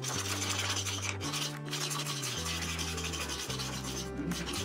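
A flat hand tool is rubbed back and forth along a plywood edge, making a scraping, rasping sound as the edge is smoothed. Background music with a steady bass line plays under it.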